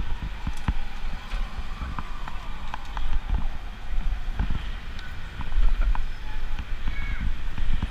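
Wind rumbling on a bicycle-mounted action camera's microphone while riding through city traffic, with scattered knocks and rattles from the ride.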